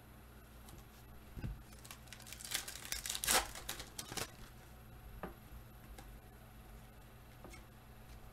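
Foil trading-card pack wrapper crinkling and tearing as it is opened. The crackles come in a cluster between about two and four seconds in, with a few soft clicks of cards being handled before and after.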